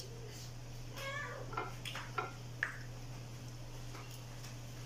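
A short high-pitched call about a second in, then a few light clicks, over a steady low hum.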